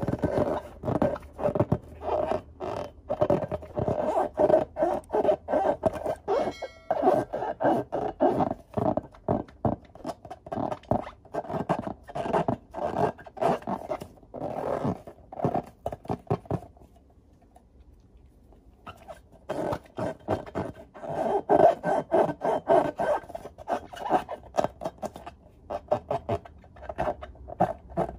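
Hands rubbing and squeezing filled latex balloons: a fast, dense run of rubbery squeaks and scrapes, with a break of about two seconds about two-thirds of the way through.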